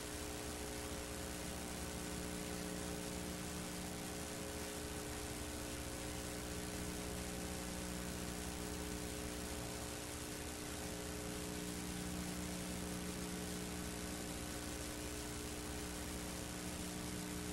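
Steady electrical hum and hiss with no other sound: a low hum that swells and fades every few seconds over even background hiss.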